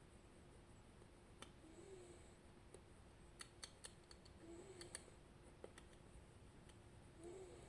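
Faint, sharp metallic clicks of lock-picking tools working in an Elzett M magnetic rotor lock, scattered irregularly with a quick cluster around the middle, over a steady low hum.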